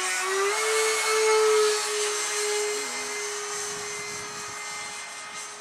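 Whine of an RC F16's 70mm electric ducted fan driven by a brushless motor, in flight. It steps up in pitch shortly in, is loudest in the first two seconds, then grows quieter and holds a steady tone.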